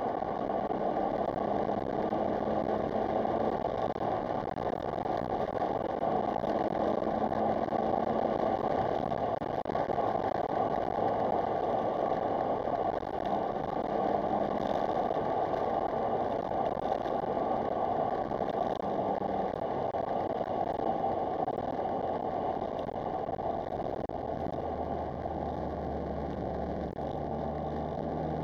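Smart Roadster Brabus being driven, with a steady mix of engine and road noise. A deeper engine note comes in near the end and rises slightly.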